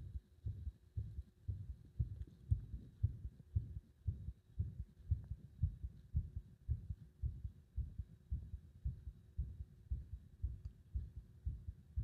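A heart beating, heard close up through the body: a fast, regular run of low thumps.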